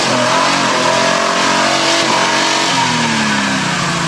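Off-road 4x4's engine revving hard under load as the vehicle climbs out of a mud pit. The revs waver, then fall away steadily near the end.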